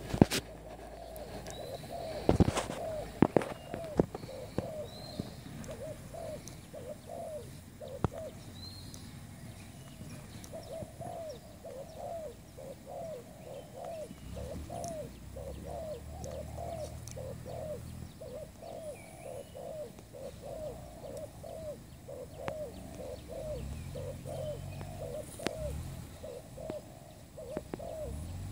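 Spotted dove cooing over and over in strings of short rolling coos, a few notes a second. A few sharp clicks or knocks stand out in the first few seconds and once more about eight seconds in.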